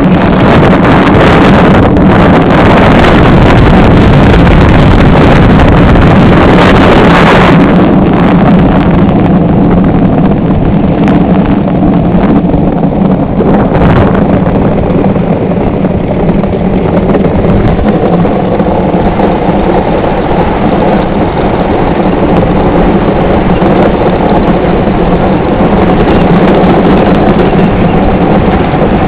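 An iceboat running at speed over lake ice: a loud, steady noise from its runners on the ice, mixed with wind on the microphone.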